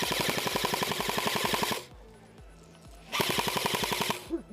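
Airsoft automatic electric rifle firing on full auto: a rapid, even rattle of shots, about fifteen or more a second. One long burst stops just under two seconds in, and a second short burst of about a second follows a little after the three-second mark.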